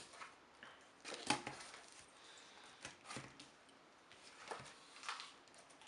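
Hands handling a smartphone and a plastic selfie-stick phone clamp on a table: scattered light knocks, clicks and rustles, the loudest about a second in.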